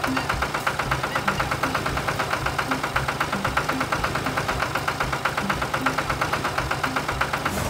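Tractor engine chugging steadily with rapid, even beats.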